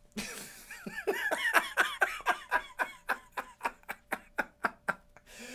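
A man laughing hard: a long run of quick 'ha' bursts, about four to five a second, each dropping in pitch, trailing off near the end.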